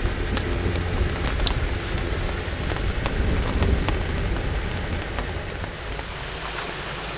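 Rain falling on the fabric of a fishing shelter, heard from inside: a dense hiss with fine scattered drop clicks over a low rumble. The low rumble drops away about six seconds in.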